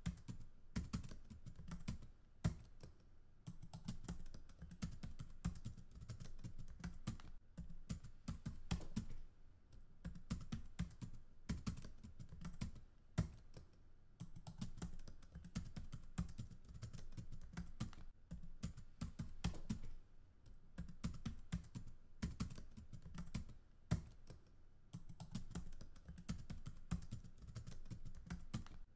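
Typing on a computer keyboard: fast runs of keystrokes broken by short pauses every few seconds.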